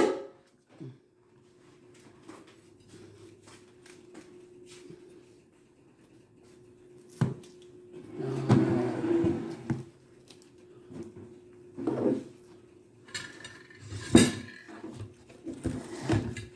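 Kitchen dishes and utensils clinking and knocking: separate sharp knocks every few seconds, a longer clattering stretch about eight seconds in, and a faint steady hum underneath.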